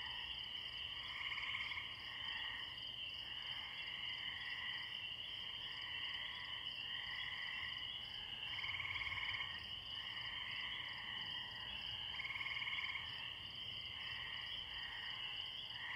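Distant chorus of spring peeper frogs and tree crickets at a pond: a steady high-pitched chorus with repeated trills about a second long, coming every second or two.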